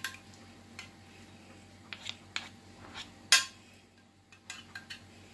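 Wooden spatula and metal spoon spreading béchamel sauce in a glass baking dish: scattered light clicks and scrapes of the utensils against the glass, with one sharper knock about three seconds in.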